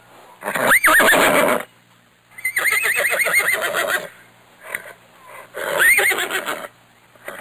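Horse neighing three times, each call lasting one to two seconds and wavering up and down in pitch.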